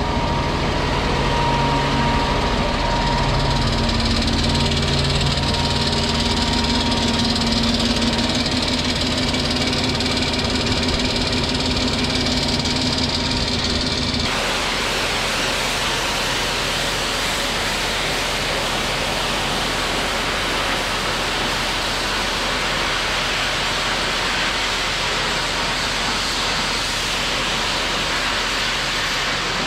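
Engine of a tractor-mounted high-pressure washer running steadily, its pitch shifting a few seconds in. About halfway through it gives way abruptly to the steady hiss of high-pressure water spray hitting walls.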